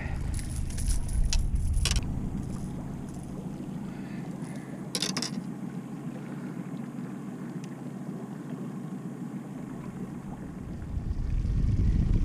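Small fishing boat under way at trolling speed: a low rumble, heaviest in the first two seconds and again from about eleven seconds, over a faint steady wash. Sharp clicks and rattles sound in the first two seconds and again about five seconds in.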